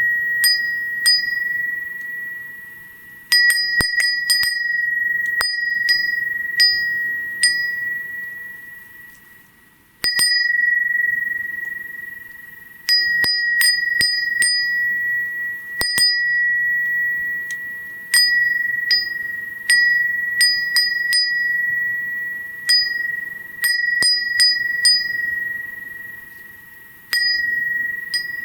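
Kinomoto crystal-glass fūrin (Japanese wind bell) rung by its glass clapper: clusters of quick, light strikes at one clear high pitch, each cluster ringing on and fading away over a few seconds before the next.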